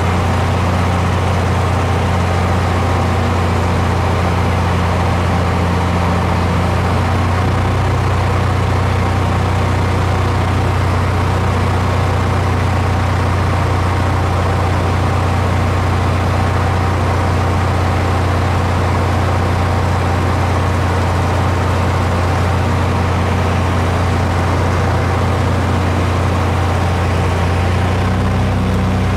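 Loud, steady drone of an aircraft's engine heard from on board: a low hum with a few steady higher tones over a constant rushing noise, the tones shifting slightly about a quarter of the way in and again near the end.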